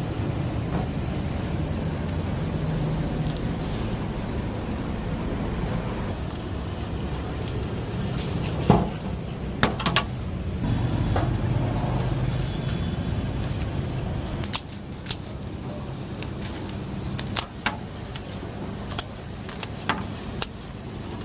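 Knife cutting pieces of roasted goat meat on a stainless steel tray: sharp clicks and taps of the blade on the metal, coming a few at a time near the middle and more often in the last third. A steady low rumble runs underneath and drops away about two-thirds of the way through.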